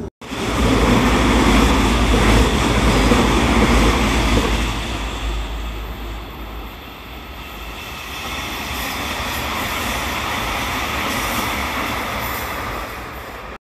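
Electric train running past a station platform: rumble and clatter of wheels on the rails, loudest over the first four or five seconds, then easing off to a lighter steady rumble.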